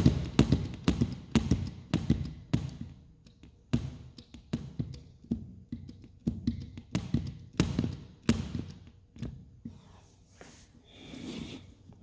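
Hydraulic hand crimper being pumped: a quick, uneven run of sharp clicks and knocks from the handle strokes as the die closes on a heavy-gauge wire connector. The clicks stop near the end.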